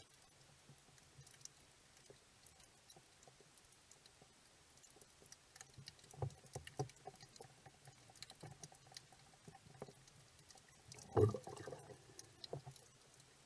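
Underwater sound picked up by a camera in shallow reef water: faint scattered crackling clicks, with a few dull knocks about six to seven seconds in and a louder thump about eleven seconds in.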